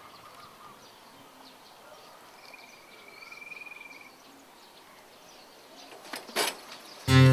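Quiet outdoor ambience with faint bird chirps and a thin, held whistle-like call lasting about a second and a half. About six seconds in come two short rushing noises, and acoustic guitar music starts loudly at the very end.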